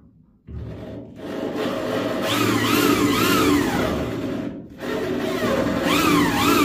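Hand drill with a spot-weld drill bit cutting through spot welds in a car's sheet-steel rear fender, the bit squealing in a wavering pitch as it bites. It stops briefly about four and a half seconds in, then starts cutting again.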